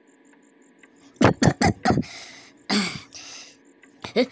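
A man coughing: a quick run of four hard coughs about a second in, then another harsh cough near three seconds, with breathy gasps between. The coughing belongs to a chesty illness with sneezing and fever.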